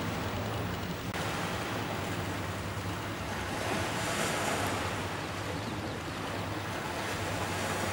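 Steady wind and sea-water noise with a low steady hum underneath; a broader hiss swells briefly about four seconds in.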